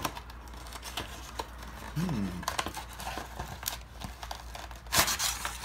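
A small cardboard box being opened by hand: scattered clicks and rustles as the flap and tab are worked, then a short, loud scrape of cardboard about five seconds in.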